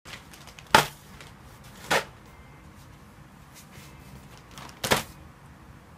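Three sharp knocks: one just under a second in, one about two seconds in, and a doubled knock near five seconds, over faint room hiss.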